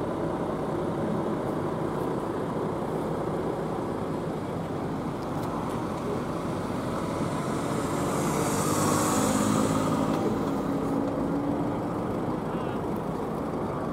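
Fire service vehicle engines running at idle and low speed as a fire van with blue lights on pulls slowly away, with no siren. A hiss swells and fades about eight to ten seconds in.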